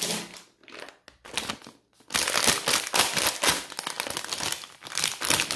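Plastic sweet packet of Haribo Jelly Beans crinkling as it is handled: a few short rustles, then steady dense crackling from about two seconds in.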